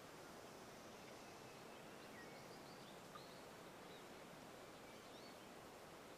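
Near silence: a faint steady hiss with a few faint, high chirps of distant songbirds through the middle, and a single small tick about three seconds in.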